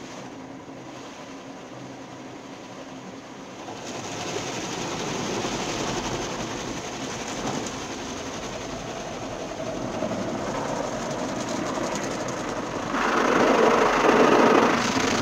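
Automatic car wash spraying the car, heard from inside the cabin: a steady rush of water hitting the windscreen and body, with the wash machinery running. It grows louder about four seconds in and louder again near the end, as the spray gets heavier.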